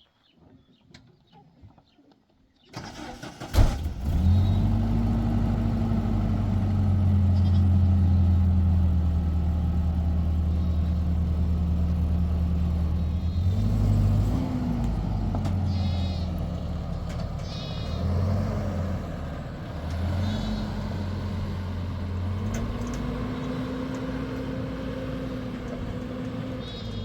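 An engine starts about three seconds in and then runs steadily, its pitch dipping and rising a few times.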